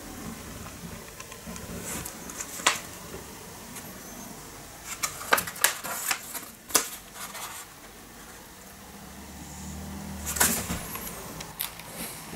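Scattered clicks and taps from hands handling a folded paper card and an opened cardboard carton on a plastic plate, with a quick run of them about five to seven seconds in and a sharp one about ten seconds in.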